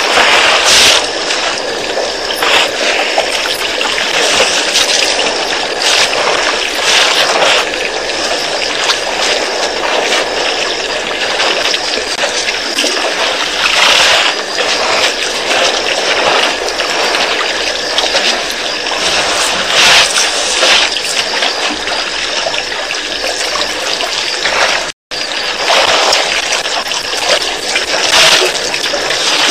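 Water splashing and trickling as a herd of elephants drink at a waterhole, a continuous noisy wash with louder swells every few seconds. The sound cuts out for an instant about 25 seconds in.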